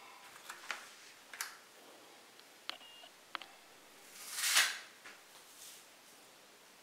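Light clicks and crinkles of a thin clear plastic sweets tray being handled and set down, with a brief high squeak near the middle and a louder short rustle about four and a half seconds in.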